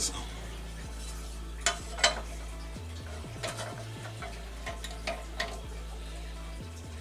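Steady low hum with a few light clicks and taps scattered through it, typical of a mower blade being handled and repositioned in a vise; the angle grinder is not running.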